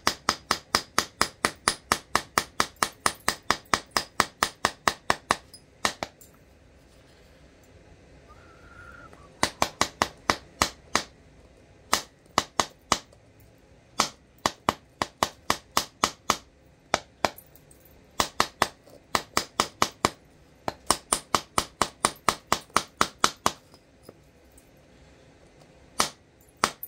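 Flint knapping with an antler punch: runs of sharp, rapid taps on the flint, about four a second, in several bursts with short pauses between them.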